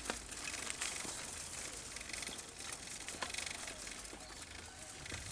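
Outdoor village ambience: a steady hiss with a few sharp ticks scattered through it.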